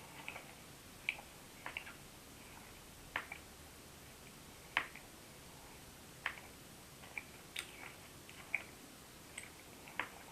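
A sleeping person grinding his teeth (sleep bruxism): short, sharp tooth clicks at uneven intervals, about a dozen, faint over quiet room tone, with the loudest a little under halfway in.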